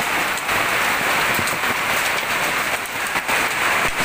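Hailstorm with heavy rain pelting down: a dense, steady hiss with scattered sharper taps of hailstones striking.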